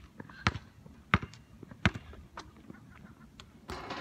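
A ball being struck on an outdoor court: three sharp hits about two-thirds of a second apart, then a couple of fainter taps, with a brief rushing noise near the end.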